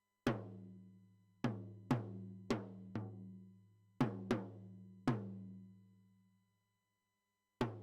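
Recorded drum track playing single strokes on a pitched drum, about nine in all at an uneven pace, each hit ringing on in a long fading low tone. After a pause of a couple of seconds, one more stroke lands near the end.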